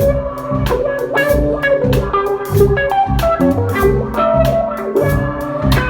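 Instrumental music of a hip-hop song: a steady drum beat under guitar and bass chords, with no vocals.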